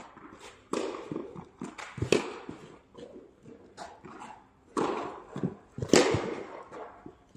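Tennis rally: sharp pops of racket strings hitting the ball, with ball bounces and court footfalls between them. The four loudest hits come about 1.4 s apart at the start and again about 1.2 s apart later.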